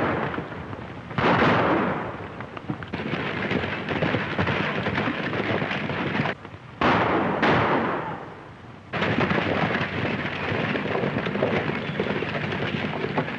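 A herd of horses galloping, a dense rumble of hooves on dirt. Its loudness jumps abruptly up and down several times.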